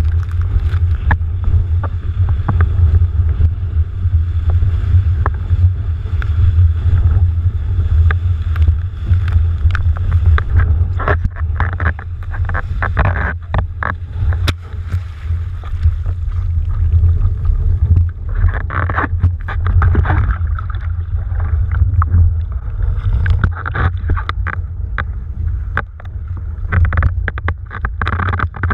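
Wind buffeting a boom-mounted action camera's microphone in a steady, heavy low rumble while a windsurf board planes. Gusts of rushing water and spray come and go, strongest about a dozen seconds in and again near twenty seconds, with scattered small knocks and splashes.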